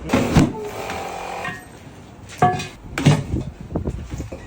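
A series of hard knocks and clunks: two close together at the start, one about two and a half seconds in, then a loud pair followed by a quick run of lighter clicks.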